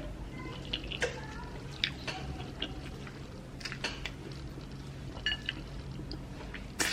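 Close-up eating sounds of amala and ewedu soup: soft wet squishes, smacks and small mouth clicks scattered through, over a steady low hum.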